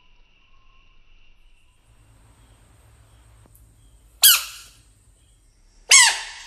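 Two loud, short frog cries about a second and a half apart, each a squeal that falls in pitch: a frog's defensive call as a hand prods at the frogs.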